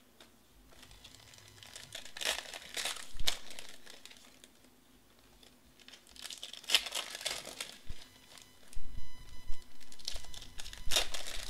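Foil trading-card pack wrappers crinkling and tearing open by hand, in three bursts, with softer handling of the wrapper and the cards between them.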